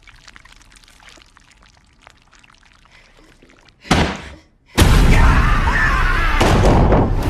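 Faint clicks and rustles, then a sudden loud hit about four seconds in, a brief silence, and from about five seconds a loud, sustained noisy rush with high screeching glides through it.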